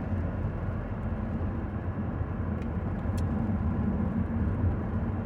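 Steady engine and road rumble heard from inside a moving car's cabin, with a couple of faint ticks partway through.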